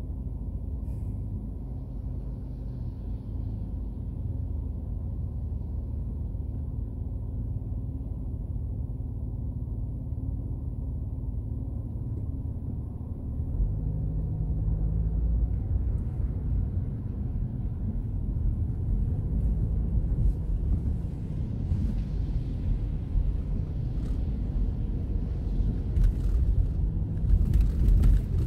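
Low rumble inside a car's cabin. It starts as a steady idle hum while the car waits in traffic, then grows louder from about halfway as the car pulls away and engine and tyre noise on the wet road rise. A few faint clicks come near the end.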